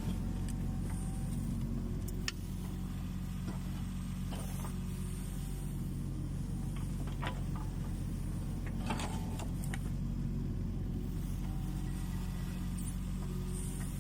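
Kubota U20 mini excavator's diesel engine running steadily while digging, with scattered sharp clicks and knocks over the drone.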